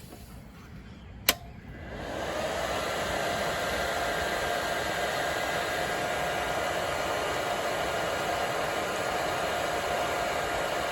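A single click about a second in as the Hone MMA 205 stick/TIG welder is switched on, then its cooling fan spins up over about a second and runs steadily with an even rushing whoosh and a faint steady tone.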